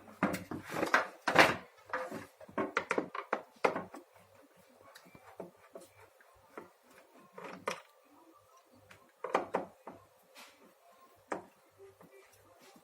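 Clicks and knocks from a vacuum cleaner's plastic housing being handled and unscrewed: a dense run of knocks in the first four seconds, then scattered single knocks.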